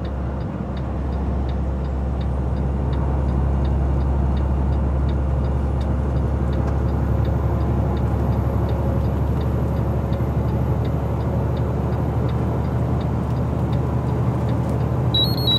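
Steady engine and tyre drone heard from inside a vehicle moving at highway speed. A light, regular tick sounds about three times a second throughout.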